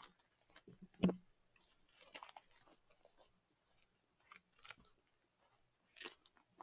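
Footsteps crunching on snow and ice on a steep uphill trail, irregular steps roughly one a second, the loudest about a second in.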